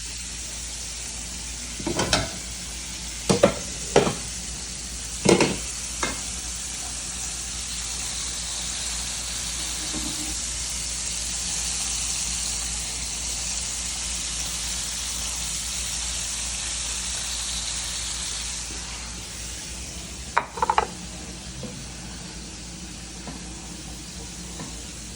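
Chicken pieces deep-frying in hot grease, a steady sizzle that eases somewhat near the end. A few sharp knocks around two to six seconds in and another pair about twenty seconds in.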